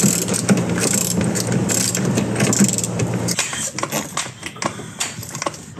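A steady mechanical hum from a running motor for the first three seconds or so, then it stops and irregular metallic clicks and clanks follow as a hydraulic floor jack is pumped.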